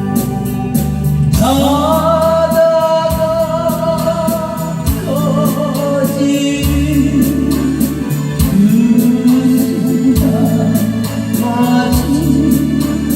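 A voice singing a Korean popular song, holding long notes, over backing music with a steady beat.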